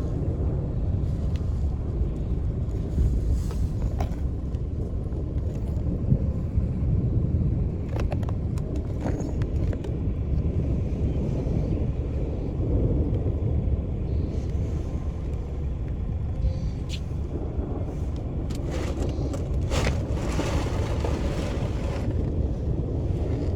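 A steady low rumble, with short clicks and taps scattered through it, several of them close together near the end.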